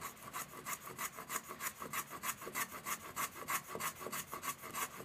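Axminster Rider 102 apron plane cutting a small pine block in rapid short strokes: a quick, even rasping scrape about six times a second.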